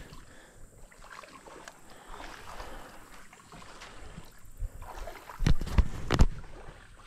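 Close-up handling of a freshly caught sunfish held up to the microphone: faint rustling over a low outdoor background, then a quick cluster of sharp knocks and thumps a little over five seconds in.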